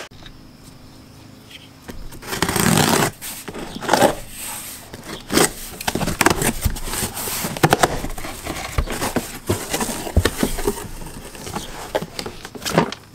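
A cardboard shipping box is cut open with a pocket knife and its flaps pulled back. It makes a string of short, irregular cardboard scrapes, crackles and clicks, loudest about two and a half seconds in.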